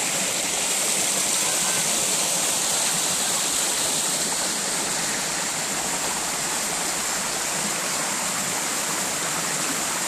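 Mountain valley stream flowing, a steady, even sound of running water.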